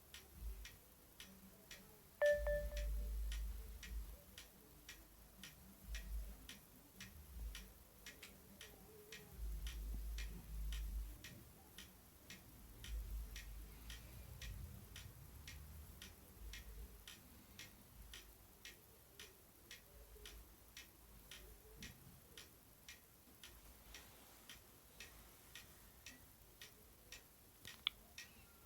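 A clock ticking steadily and faintly, about two ticks a second. There are irregular low thumps, and a brief beep about two seconds in.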